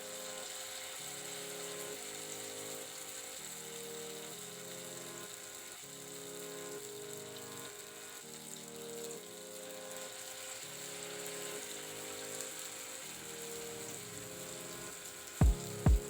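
Soft background music with a repeating chord pattern, over a steady hiss of battered potato pieces frying in hot oil. Two sharp knocks near the end.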